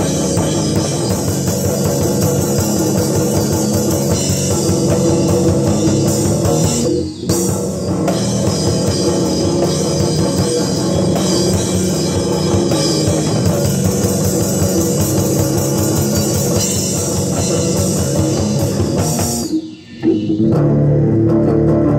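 Live rock music played on an electric bass guitar and a drum kit. The sound dips briefly about seven seconds in. Near the end the drums drop out, leaving the bass sounding on its own.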